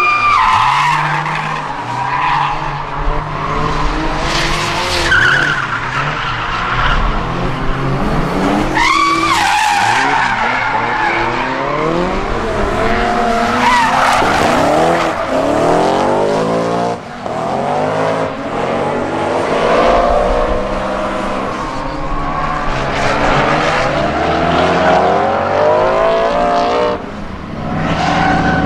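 Drift cars sliding sideways through corners, one after another: engines revving hard, the pitch repeatedly climbing and dropping back as the throttle is worked, over the hiss and squeal of spinning, smoking rear tyres.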